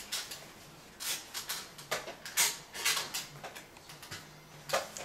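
Irregular knocks, clicks and rustles of a toddler clambering onto a baby swing, the swing's seat and frame shifting and bumping under his weight.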